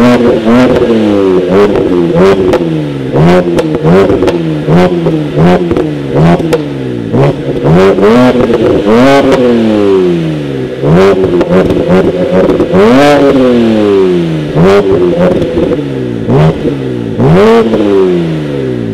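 BMW 330i's N52 straight-six, exhaust straight-piped with the midpipe deleted, revved while parked in a string of quick throttle blips, with a few longer, higher revs. Sharp pops and cracks come from the tailpipes as the revs drop.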